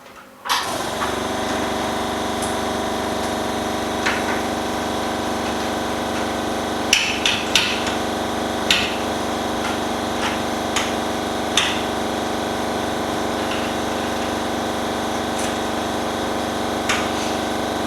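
The laminating machine's external vacuum pump switches on about half a second in and runs with a steady electric hum, holding the LCD down for the polarizer film. Sharp clicks and knocks from handling the machine sound over it, the loudest between about 7 and 12 seconds in.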